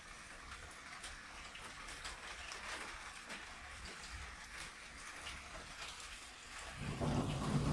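Steady rain falling, with many small drop ticks. About seven seconds in, a low rumble of thunder rises to become the loudest sound.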